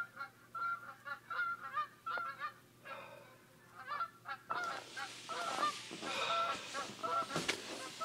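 A flock of geese honking, many short calls overlapping throughout. From about halfway through, a sleeping bag rustles as the person inside turns over.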